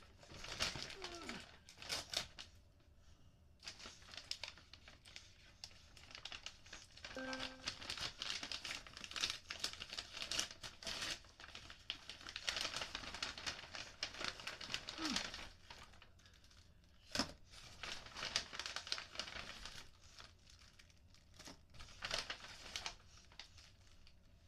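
Cardboard box and plastic packaging being handled and opened: irregular bursts of rustling, crinkling and tearing with short pauses between, and one sharp snap about two-thirds of the way through.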